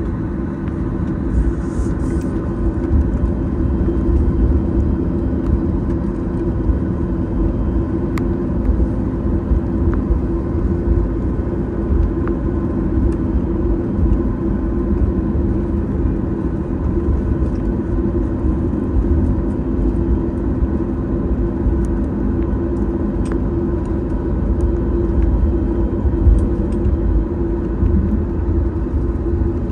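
Steady cabin noise inside a Boeing 737-8 MAX: low rumble with a steady hum from its CFM LEAP-1B engines, holding an even pitch, with a few faint clicks.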